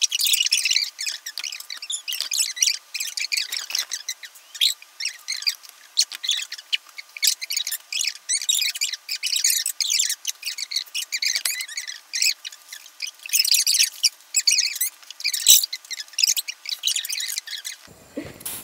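Rapid, high-pitched, squeaky chatter with no low end, like voices sped up into a chipmunk-style fast-forward effect. It cuts off sharply just before the end.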